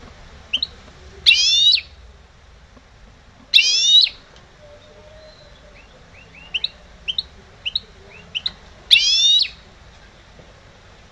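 Caged goldfinch × canary hybrid (mixto de jilguero) singing: three loud, quick trilled phrases of about half a second each, with short high single chirps in between.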